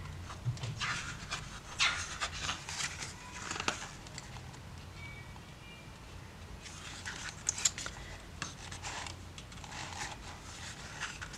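Pages of a 72-page album photobook being turned by hand: paper rustling and flapping in two spells, from about a second in and again around seven seconds in, over a low steady hum.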